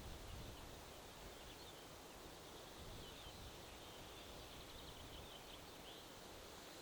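Faint outdoor ambience: a low wind rumble with small birds chirping in the distance, and a quick trill in the middle.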